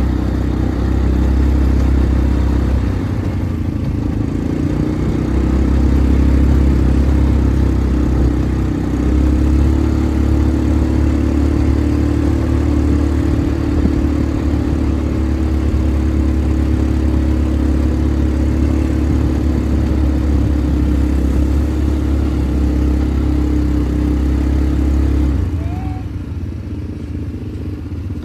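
ATV engine running steadily under power, its note changing briefly a few seconds in and again about nine seconds in, then dropping to a quieter, lower running note near the end.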